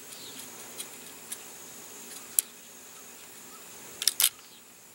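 Light, sharp clicks from fingers working on a small elastic-launched model glider as its canard is bent to add camber: a few single clicks, then a quick run of three about four seconds in. A steady high insect buzz runs underneath.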